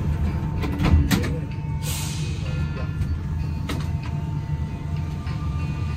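Cabin sound of an Alstom NS-93 rubber-tyred metro train as it leaves a station after its doors close: a steady low rumble, a few sharp knocks about a second in and again later, and a brief hiss of air about two seconds in.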